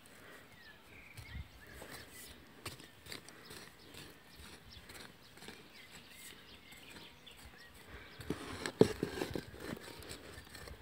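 Garden hand cultivator scraping and knocking through soil as it loosens the earth: faint scratches at first, then a run of louder strokes near the end.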